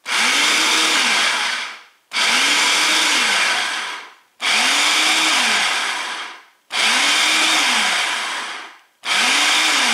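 Food processor pulsed five times, each pulse a loud motor whir of just under two seconds that spins up and winds down, the blade chopping cold diced butter into flour and salt for pie dough.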